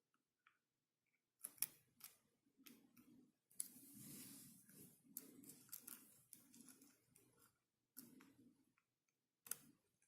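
Faint clicks and scraping of a lock pick and tension wrench working the pins inside a Yale pin-tumbler lock during picking. The sharpest clicks come about a second and a half in and near the end, with a soft scrape around the middle.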